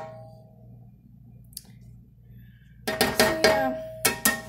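A clatter of sharp knocks in two bursts, about three and four seconds in, each followed by a short ringing tone, like cookware or utensils being struck together.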